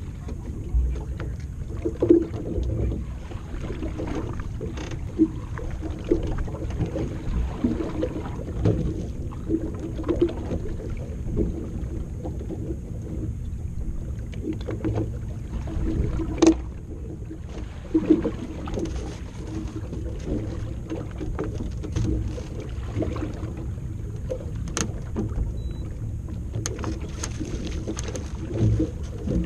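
Small waves slapping and washing against the hull of a drifting bass boat, over a steady low rumble, with scattered sharp knocks on the boat. Near the end a hooked smallmouth bass splashes at the surface beside the boat.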